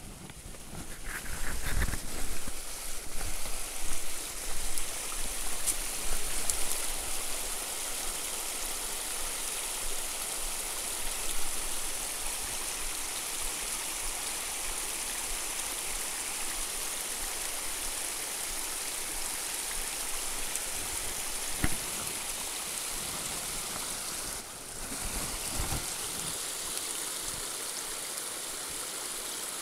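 Small woodland creek babbling steadily over rocks. Louder uneven rustling and steps come in the first several seconds.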